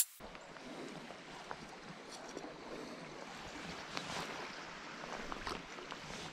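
Small river flowing, a steady even rush of water, with a few faint clicks over it.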